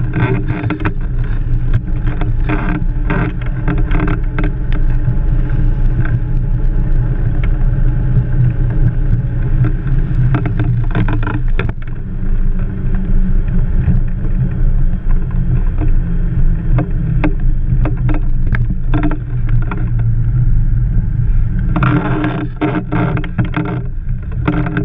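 Blokart land yacht running along beach sand: a steady low rumble of wind and wheels, broken by frequent short rattles and knocks, which come thicker near the end.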